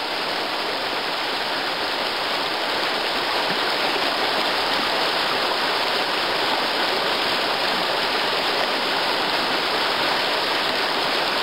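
Rocky forest stream rushing over small rapids: a steady, even rush of water.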